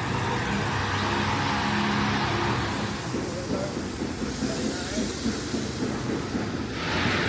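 A motor or engine running with a steady hum, turning to a rougher rumble about three seconds in.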